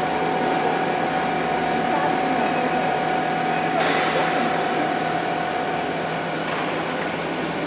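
Automatic GTAW (TIG) welding of carbon steel pipe: a steady arc hiss over the welding station's machine hum, with a steady high whine that stops about six and a half seconds in. A short burst of louder hiss comes a little before four seconds in.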